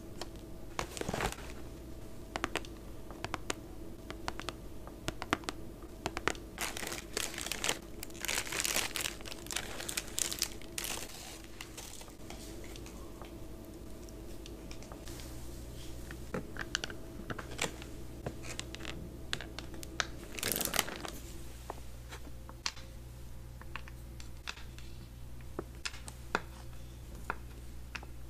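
Close-miked eating sounds: crackling, crunching bites into chocolate-coated treats and wet chewing, in irregular clusters of sharp clicks, thickest in the first half and with one loud crackle about two-thirds of the way through.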